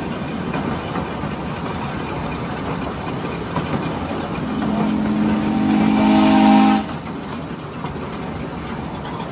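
Ride-on miniature railroad train rolling along with a steady clatter of wheels on the track. About four and a half seconds in, the locomotive's chime whistle sounds several tones together for about two seconds, grows louder, and cuts off suddenly.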